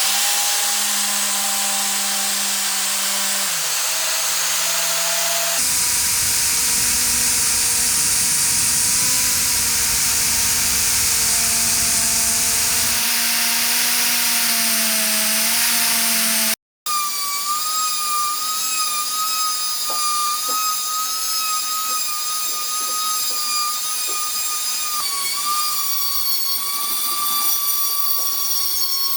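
Electric power tool working on old rusty pipe-vise metal: a steady hiss over a motor whine that wavers slightly in pitch. After an abrupt cut, a higher, steadier motor whine takes over.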